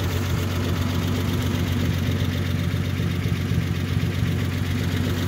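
An engine running steadily at a constant speed: an even, low droning hum with no change in pitch.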